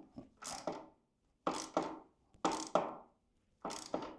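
Hand-tool work on a motorcycle skid plate: a series of dull knocks, often in close pairs, about one a second, as a tight fit is forced into place.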